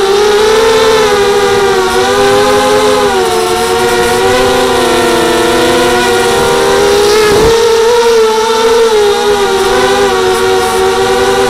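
230 mm FPV racing mini quadcopter in flight: the high whine of its brushless motors and propellers, the pitch rising and falling with the throttle.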